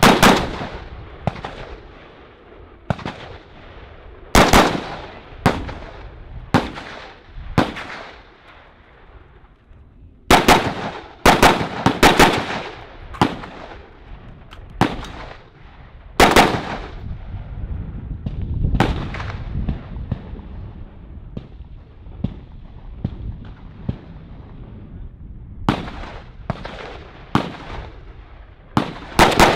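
AR-15-style rifle fired in a string of single shots at an irregular pace, often about a second apart, each shot sharp with a short echo. Several seconds past the middle there is a pause with only faint shots, then the firing picks up again near the end.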